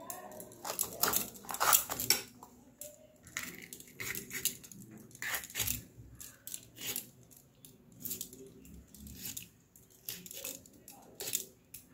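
Knife cutting a capsicum (bell pepper): irregular sharp knocks of the blade, roughly one or two a second.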